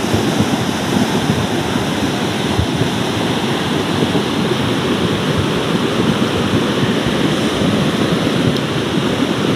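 Muddy floodwater rushing fast, with heavy rain falling: a loud, steady, unbroken rush of water.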